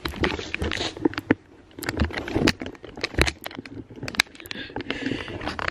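Handling noise from a handheld camera being moved and repositioned: a run of irregular clicks, knocks and rustles.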